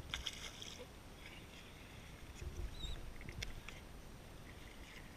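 Wind and water noise on a small fishing boat, a low rumble, with scattered light clicks and a couple of brief faint high squeaks.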